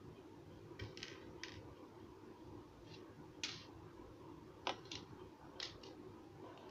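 Faint handling noise of small beads being strung on thread and the strand set down on a wooden table: a few short, soft clicks and rustles over a steady low hum.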